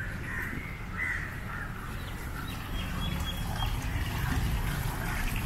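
Crows cawing several times over a steady low rumble of outdoor ambience.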